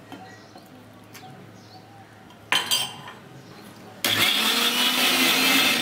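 Electric mixer grinder blending roasted sesame seeds and a little water into tahini paste in its steel jar: a short burst about two and a half seconds in, then the motor runs steadily at speed from about four seconds in. Light clinks of a spoon on the steel jar come before.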